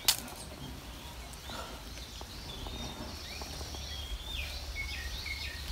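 A single sharp knock right at the start, then faint bird chirps from about three seconds in, over a steady low rumble.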